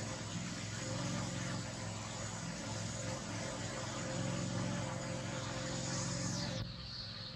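A steady low mechanical drone with a hiss over it, which cuts off sharply near the end.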